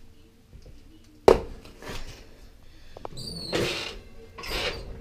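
A roasting pan being pulled out of an oven: a sharp clunk about a second in, then scraping and rustling of the metal rack and foil-lined pan, with a brief high squeak near the middle.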